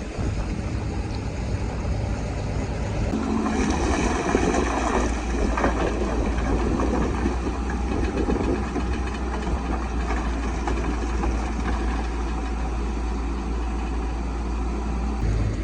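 Caterpillar bulldozer's diesel engine running steadily, growing louder and rougher from about three and a half seconds in for several seconds.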